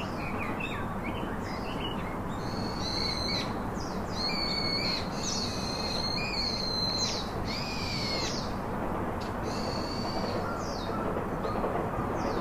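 Bird calls: a series of high whistled notes, many of them sliding up and down in pitch, repeated every second or so over a steady background hiss.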